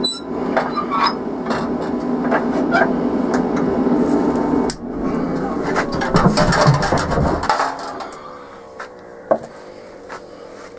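Knocks and clatter of woodturning lathe parts as the tool rest is dropped in and set in front of the bowl, over a steady machine hum. About seven and a half seconds in the hum cuts out and falls in pitch as the motor winds down.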